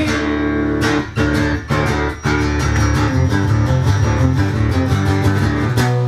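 Guitar music: chords strummed in a steady rhythm.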